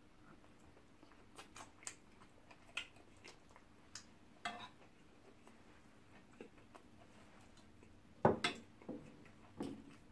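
Close-miked eating sounds: scattered light clicks of a fork against a plate and smacks of chewing, with a louder cluster of knocks and clinks about eight seconds in.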